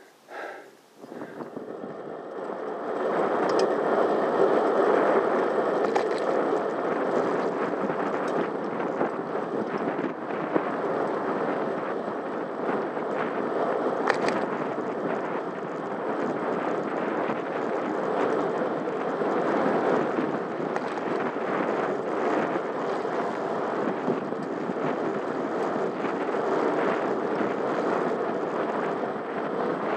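Steady rushing of wind on the microphone and tyres on tarmac from a bicycle riding along a road; the noise comes in about a second in, builds over the next two seconds, then holds steady.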